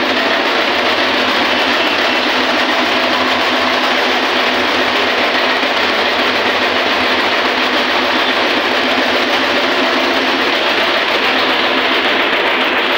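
Belt-driven atta chakki (flour mill) running, with a steady, loud mechanical din and a constant hum.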